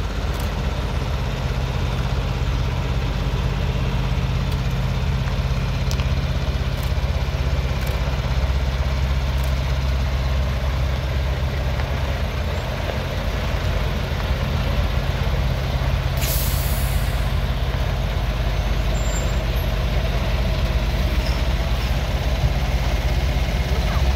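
Heavy-haulage truck's diesel engine running steadily with a low hum, with a short hiss of air brakes about sixteen seconds in.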